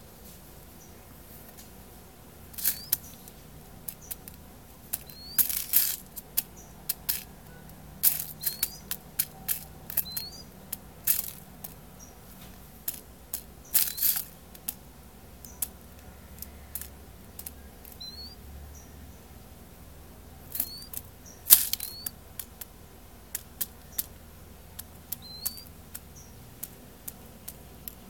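A ground dove pecking at corn grits scattered on newspaper: irregular sharp taps and clicks of its bill on the paper, sometimes in quick runs.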